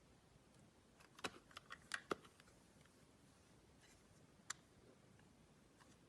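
Knife cutting through a bar of clear soap: a quick run of crisp clicks and crackles about a second in, then a single sharp click a couple of seconds later, over a quiet background.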